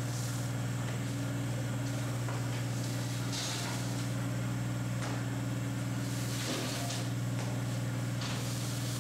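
Hydraulic guillotine shear's power unit running with a steady low hum, while a steel sheet is slid across the shear table, its scraping hiss swelling briefly about three and a half seconds in, around six and a half seconds, and near the end.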